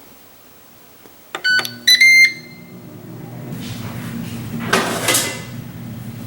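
Ninja air fryer's control panel beeping, a short beep and then a longer one, as it is started; its fan then comes on with a steady low hum and a rising rush of air. A brief louder swish sounds about five seconds in.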